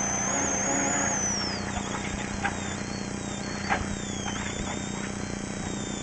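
Rally car engine running hard, heard from inside the cabin; its pitch drops after about a second and a half as the revs come off, with a few short sharp knocks.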